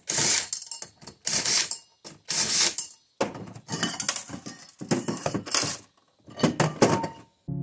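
Cordless power driver run in about six short bursts, backing out the bolts that hold a steel split-rim mini bike wheel hub together, with the metal of the rim and bolts clinking.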